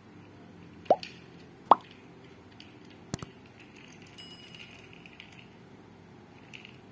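Two quick rising 'bloop' pops, then a sharp double click and a faint, brief high ding: the sound effects of a subscribe-button animation.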